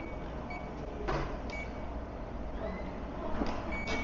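Mobility scooter's reverse warning beeper giving short, evenly pitched beeps at irregular intervals as the scooter backs up and turns, with a few knocks, the loudest about a second in and near the end.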